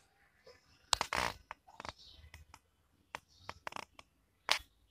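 A sheet of paper handled close up: short crinkles and scrapes of fingers on the paper, the loudest a rustle about a second in and another brief one near the end.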